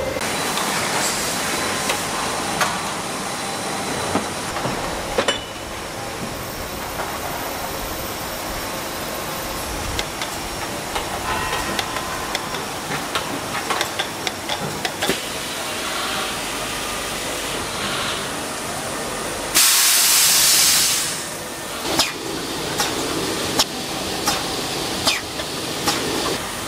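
Crankshaft grinding and polishing machinery running: a steady hiss with scattered clicks and knocks. A loud burst of hissing about twenty seconds in lasts a second and a half.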